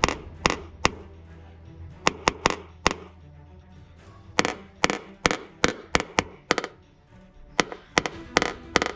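Quick runs of light, sharp taps on a car's body panel, typical of tapping down high spots with a knockdown tool and hammer in paintless dent repair; a lull in the middle, then a faster run near the end. Background music plays throughout.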